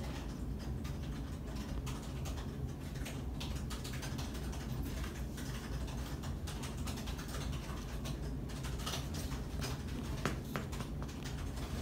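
Scattered light clicks and taps over a steady low hum.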